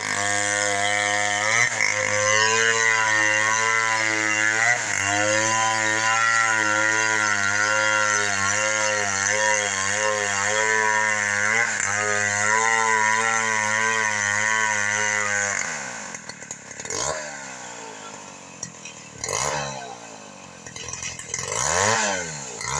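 Two-stroke chainsaw running at high revs, cutting into falcata wood, its pitch wavering as the chain bites and eases. About two-thirds of the way through it drops suddenly to a quieter, lower running, with the revs swinging up and down.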